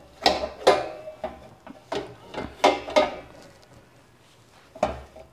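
Metal muffin tin clanking and scraping against a large metal cooking pot as it is set down inside it, a series of sharp knocks with brief metallic ringing, then a last knock about five seconds in.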